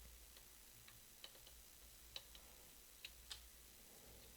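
A handful of faint, irregular metallic clicks from a lock pick probing the pin stacks inside a 50mm brass U-Haul padlock held under tension.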